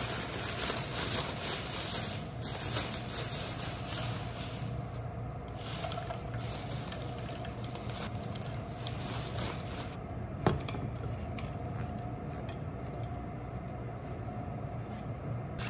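Plastic zipper bag crinkling as frozen maitake mushrooms are shaken out onto a wooden cutting board, over a steady low kitchen hum, with one sharp click about ten seconds in. Near the end, a spatula scrapes sliced onion and ham off the board into a frying pan.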